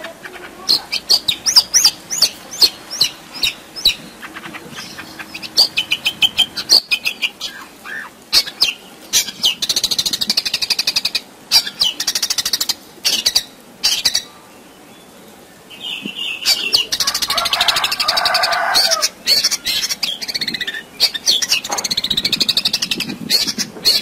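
Long-tailed shrike (cendet) singing a fast, ever-changing song of chirps, whistled slurs, rapid rattling trills and harsh lower phrases, with sharp clicks between them. The song is packed with notes borrowed from other birds, the shrike's mimicry.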